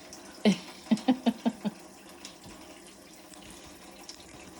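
Tap water running steadily into a sink. In the first second and a half, a few short vocal sounds break over it: one falling, then four quick ones.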